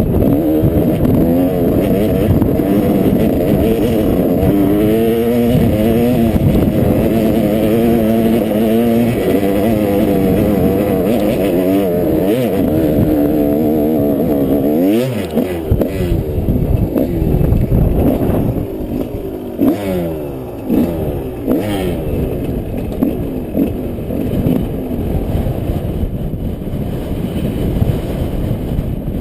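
Yamaha 125 cc off-road motorcycle engine being ridden, its revs rising and falling again and again. It eases off and is less loud in the second half, with some rattling from the bike.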